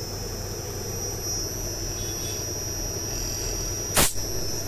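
Inverter air-conditioner compressor running empty without load, driven by a Daikin outdoor inverter board: a steady hum with a steady high whine. A single sharp knock about four seconds in.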